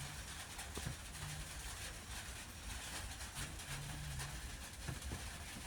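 Rain falling on a roof: a steady hiss with many faint scattered drop ticks and a low rumble underneath. A short low tone comes and goes a few times.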